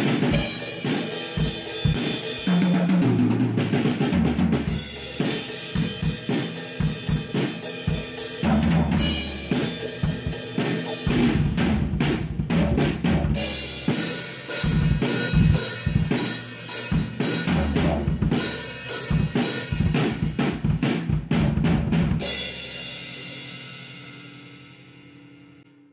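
Acoustic drum kit played in a groove with tom fills, bass drum, snare and crashing Meinl cymbals. The heads are freshly replaced, with the toms tuned low to medium and the snare medium to high, and no moon gel dampening. The playing stops about 22 seconds in and the cymbals ring down.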